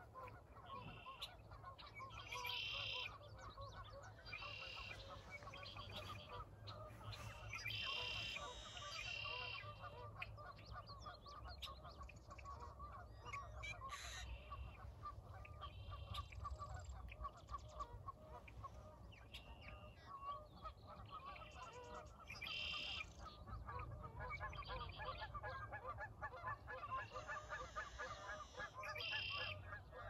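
A large flock of birds calling continuously, many calls overlapping into a constant chatter. Louder, higher calls stand out every second or two, over a low rumble.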